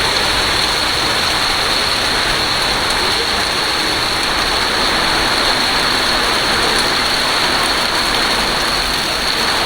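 Heavy rain pouring down, a steady loud hiss with no breaks.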